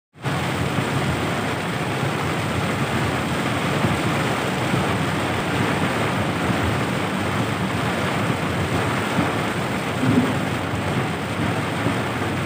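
Heavy rain hitting the windshield and roof of a moving car, heard from inside the cabin, mixed with tyre noise on the flooded road: a steady, dense rush.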